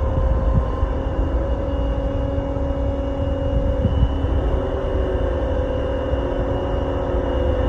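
Large crane's engine running steadily with a low rumble and a constant hum.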